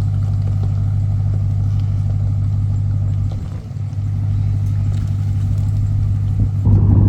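A truck's engine running steadily at low revs, with a brief dip in level about three and a half seconds in.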